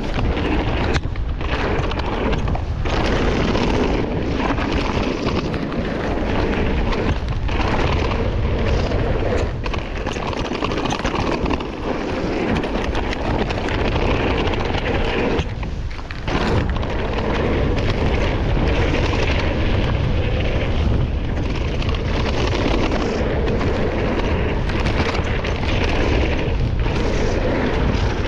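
Heavy wind rumble on a mountain biker's camera microphone, mixed with tyre and trail noise during a fast descent of a flow trail. Steady and loud, with a few short dips, the longest about halfway through.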